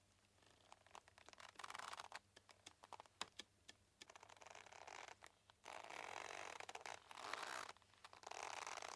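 Boat ropes creaking under strain as the boat shifts, in drawn-out creaks of a second or two, with quick clicking ticks between them.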